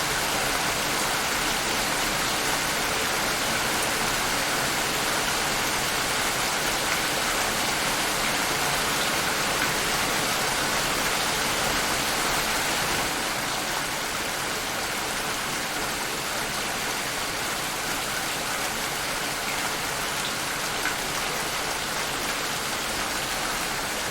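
Steady rain falling, a dense even hiss of drops with no let-up, easing slightly in loudness about halfway through.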